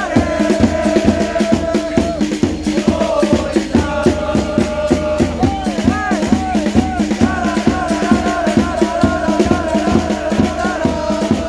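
Football supporters' chant: a melody sung and held in unison by the fans over a fast, steady drum beat.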